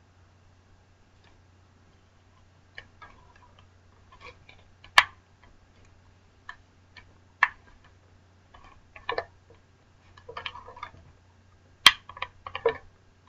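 Hands working small plastic parts of an RC buggy while fitting its antenna tube: irregular clicks, taps and brief rustles, with two sharper clicks, one about five seconds in and one near the end.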